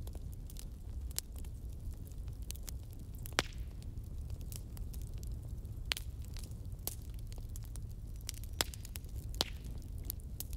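Fire crackling: irregular sharp pops and snaps over a low, steady rumble, with the loudest pops about a third of the way in and just past the middle.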